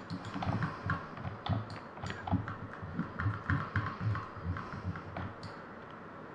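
Soft, irregular thumps and clicks of a computer mouse being handled on a desk, a few a second, as the 3D view is dragged round and zoomed.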